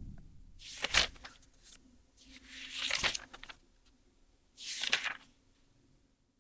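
Three short bursts of rustling, handling noise with sharp clicks: about a second in, around three seconds in, and near five seconds in.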